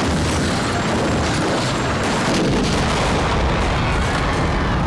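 Helicopter flying low overhead, its rotor and engine giving a dense, steady rumble.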